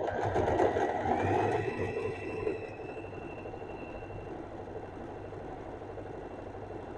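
Usha Janome Allure DLX electric sewing machine running steadily as it stitches a darn over a hole in cloth. Its motor whine rises in pitch about a second in and then holds, and the run is louder for the first couple of seconds.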